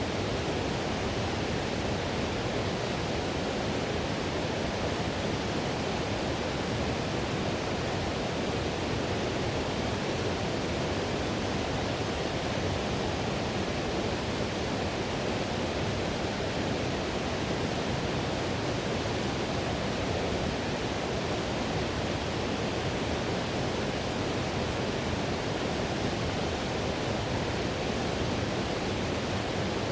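Whitewater river rushing: a steady, unbroken roar of fast-flowing water.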